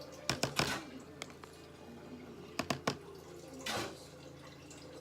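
Light clicks and knocks of kitchen things being handled: a few taps about half a second in, a couple more near the middle, then a short scraping rustle.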